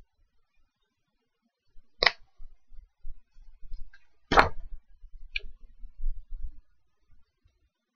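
Stiff photo pages of a ring binder being handled and turned: two sharp paper swishes, about two seconds in and about four and a half seconds in, the second louder, with light clicks and soft knocks of handling between them.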